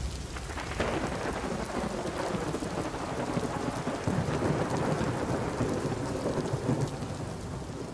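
Thunderstorm: steady heavy rain with low rolling thunder, fading out near the end.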